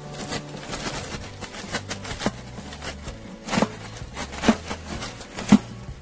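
Knife cutting and scraping honeycomb out of a wooden hive box of native honeybees: a run of small clicks and scrapes, with several sharper knocks about a second apart in the second half.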